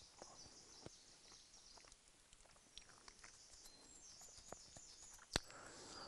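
Near silence: a faint background hiss with a few soft ticks and one sharper click about five seconds in.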